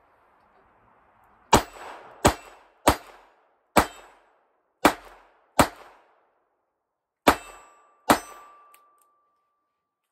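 Ruger LCR eight-shot .22 LR revolver firing Winchester Super X bulk ammunition: eight sharp shots at an uneven pace over about seven seconds, emptying the cylinder with no misfire. A faint ringing tone lingers after the last two shots.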